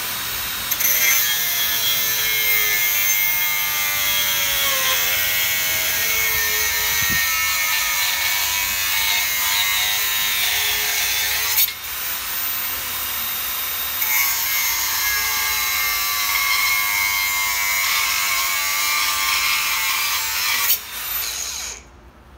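Makita cordless 4.5-inch angle grinder with a thin 0.8 mm abrasive cut-off disc cutting through half-inch steel rebar: a loud, harsh grinding hiss over the motor's whine, whose pitch sags under the load. It eases off briefly about twelve seconds in, then cuts on, and stops shortly before the end.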